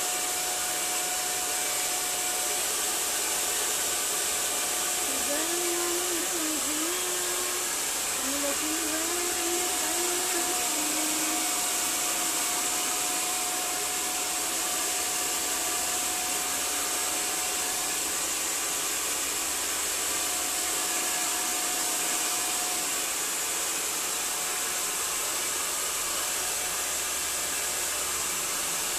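Handheld hair dryer running steadily, a constant airy rush as it is played over wet hair.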